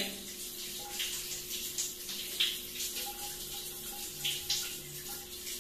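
Shower spray running steadily, with short scrubbing strokes of a toothbrush about once a second.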